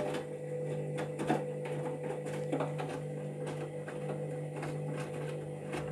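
Candy Grand'O Vita washing machine filling with water at the start of a pre-wash cycle: a steady low hum with a fainter higher tone and light scattered ticks.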